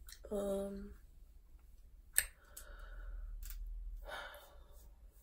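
A woman's brief hum near the start, one sharp click about two seconds in, then a soft breathy exhale lasting over a second.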